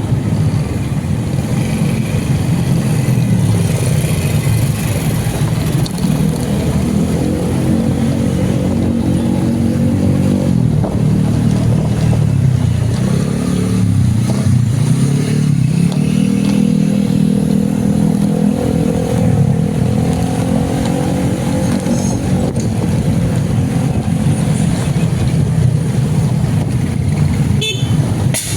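Road vehicle engine running while travelling, its pitch rising and falling as it speeds up and slows down, over steady road rumble.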